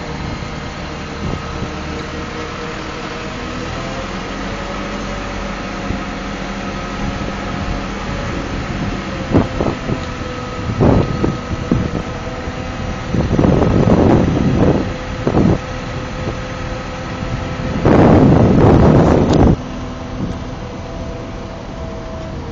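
Crane's engine running steadily, its tones drifting slightly in pitch, with several loud bursts of rushing noise over it in the second half; the longest and loudest lasts about a second and a half near the end.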